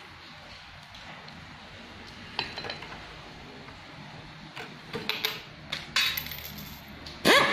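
Screwdriver and small metal parts on an industrial lockstitch sewing machine head clicking and clinking as a part beside the handwheel is screwed in place. Near the end comes a short, loud squeak that falls in pitch.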